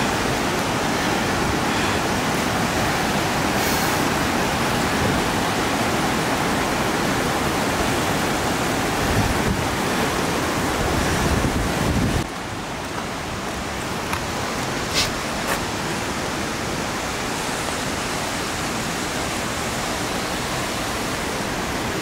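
Steady rushing of flowing water, an even wash of noise that drops a little in level about twelve seconds in. Two short clicks come soon after the drop.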